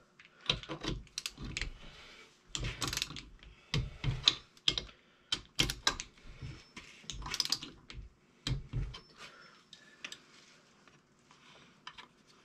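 Metal hand tools being handled: a socket, extension and torque wrench clicking and knocking in irregular clusters. The clicking stops about nine seconds in.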